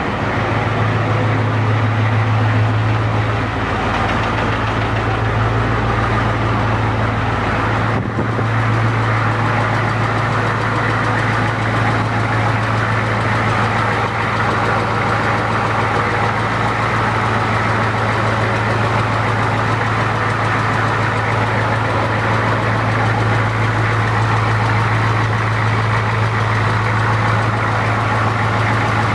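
Rebuilt 1992 Ford 7.3 IDI naturally aspirated V8 diesel idling steadily with a knock. The knock came from the old, cleaned injectors: it went away once they were replaced with new ones, though the owner had first suspected too much piston protrusion.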